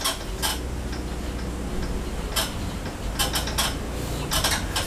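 Marker pen writing on a whiteboard: a handful of short, sharp strokes with gaps between them, as a name is written out.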